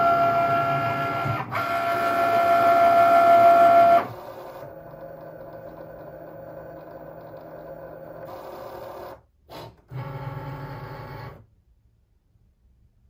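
Cricut Maker 3 cutting machine's motors whirring as the tool carriage travels and the mat feeds, just after the start button is pressed. A loud steady whine for about the first four seconds, then quieter running with a short break, stopping about eleven seconds in.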